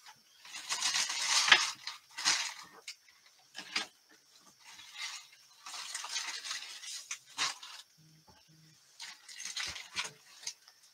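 Irregular bursts of rustling as someone rummages through a plastic storage bin of yarn and bags, with a few light knocks.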